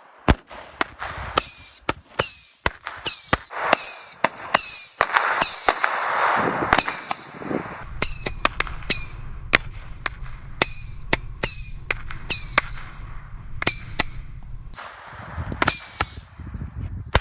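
A bundle of Roman candles firing: a fast, uneven string of sharp pops as the balls launch, about one and a half to two a second. Each pop trails a short falling whistle, with a burst of fizzing hiss from the burning fuses partway through.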